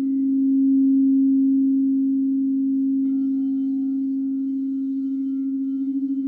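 Crystal singing bowls ringing with one strong, steady low tone. About three seconds in, fainter higher tones join it.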